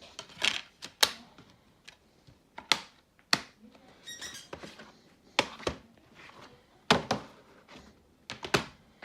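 Plastic DVD cases being handled: a series of sharp clicks and knocks with short rustles in between, and a brief squeak about four seconds in.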